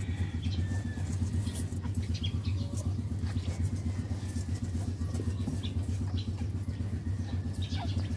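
A steady low hum runs throughout. Over it are faint thin squeaks and soft clicks from newborn Shih Tzu puppies nursing.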